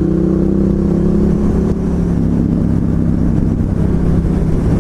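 Ducati Hypermotard 1100S's air-cooled L-twin engine running at a steady cruise under the rider, with wind rushing over the microphone.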